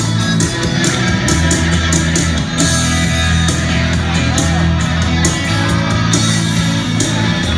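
Loud music with a steady beat over held bass notes.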